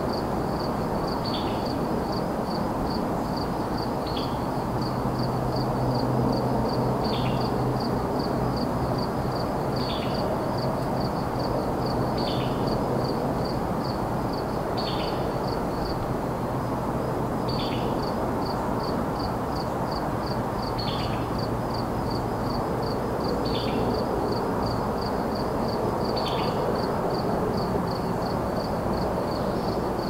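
Distant highway traffic as a steady rush, with crickets chirping in an even, fast high pulse over it. A short falling call repeats about every two and a half to three seconds.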